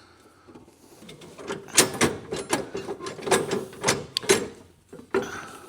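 Metal parts of a mower bagging-kit mount clanking and knocking as the part is lifted and worked onto its hooks on a zero-turn mower. A quick irregular run of a dozen or so knocks starts about one and a half seconds in.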